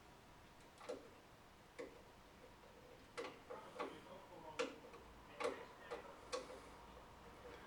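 Light metallic clicks of a small screwdriver and screws against a steel PC case while the optical drive is screwed into its bay: sharp single clicks roughly once a second, starting about a second in and coming closer together with small extra clicks in between from about three seconds on.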